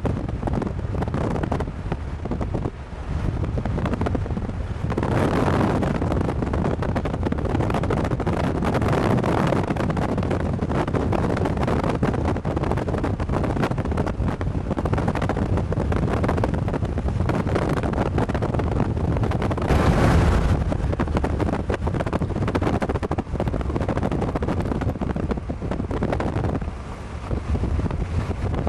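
Strong, gusty storm inflow wind rushing over the microphone, mixed with the road noise of a moving car. The wind grows louder about five seconds in, with a brief stronger gust about two-thirds of the way through.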